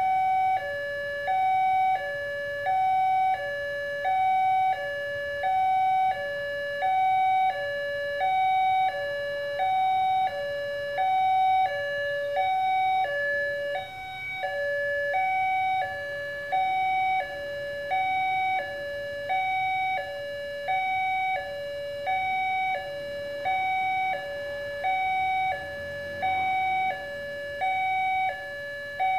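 Railway level-crossing warning alarm sounding from the horn loudspeaker on the crossing signal mast: an electronic two-tone chime alternating high and low, about one pair a second, the signal that a train is approaching. It breaks briefly about halfway through.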